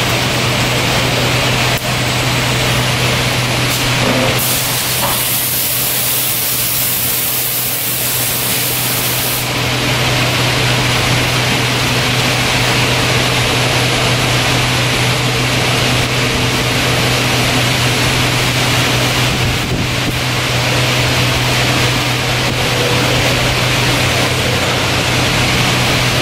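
Steady running noise of packaging-line machinery with a constant low hum. A high hiss sets in about four seconds in and stops about five seconds later.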